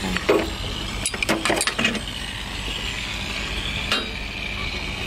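A few sharp metal clinks and taps of a spanner and fittings against the aluminium mast's gooseneck bracket, mostly in the first two seconds and once more about four seconds in, over a steady background hiss.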